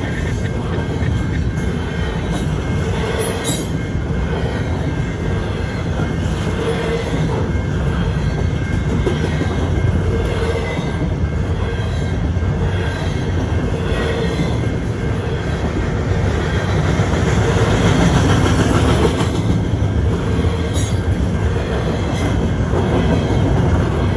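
Double-stack intermodal well cars of a long freight train rolling past: a steady, loud rumble of steel wheels on rail. A clack recurs every second or two as the trucks go by, over a thin steady wheel squeal. The last car passes near the end.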